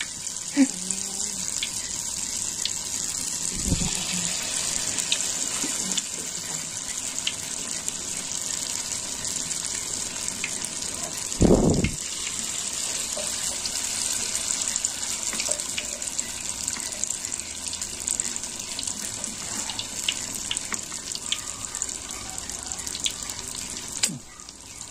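Corn fritter batter frying in hot oil: a steady sizzle with scattered little pops. A short dull thump about halfway through, and a fainter one near the start.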